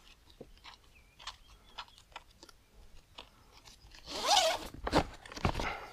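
Nylon webbing strap and plastic buckle being handled: scattered small clicks, then about four seconds in a louder rasp as the strap is pulled through the buckle, followed by two sharp clicks.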